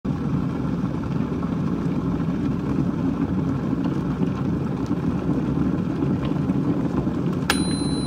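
Steady low rumbling noise. About half a second before the end come a sharp click and a brief high-pitched beep.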